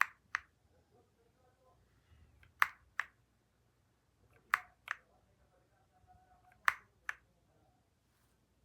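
Keys on an EPOMAKER x Aula F99 mechanical keyboard with Graywood V3 switches, struck one at a time. Each keystroke gives a pair of sharp clicks, four in all about two seconds apart.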